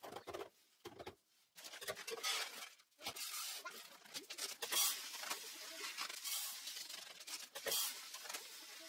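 Dry grains and black beans poured from plastic bags into clear storage canisters: a rushing, pattering trickle in several pours with short breaks between them, along with the crinkle of the plastic bags.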